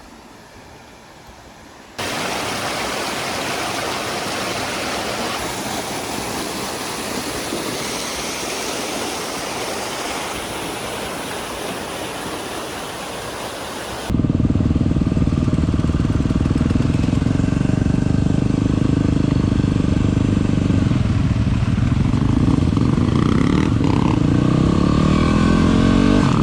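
A steady rushing noise, then about halfway through a sudden cut to a much louder motorcycle engine running steadily with wind noise.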